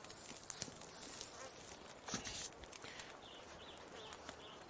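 Small wood campfire crackling under a frying pan, with scattered sharp pops, a louder scrape a little after two seconds in and a few faint high chirps near the end.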